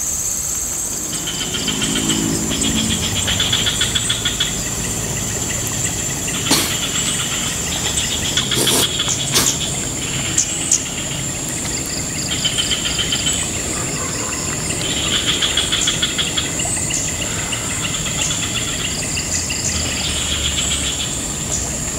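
Insects droning outdoors: a steady high-pitched whine runs throughout. Over it, short bursts of rapid pulsed chirping repeat every second or two, with a few sharp clicks near the middle.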